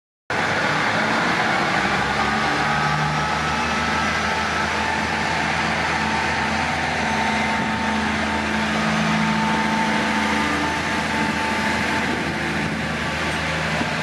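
Diesel engines of a KiHa 48 railcar running steadily under power as the train pulls away, with the engine note rising and falling slightly.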